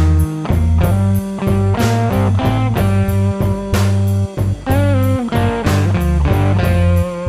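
Blues-rock music with electric guitar and bass over a steady drum beat.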